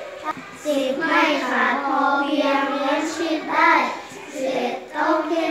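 Children reading a Thai text aloud in a sing-song chant, their voices rising and falling, with brief pauses between phrases.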